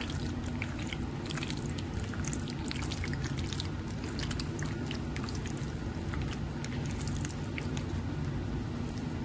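Raw chicken pieces being mixed by hand in a yogurt, spice and oil marinade: soft wet squelching with many small irregular sticky clicks, over a steady low hum.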